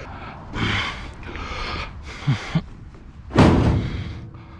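A heavy appliance being hauled up and set down: a few short scraping scuffs, then one loud heavy thud about three seconds in as it lands.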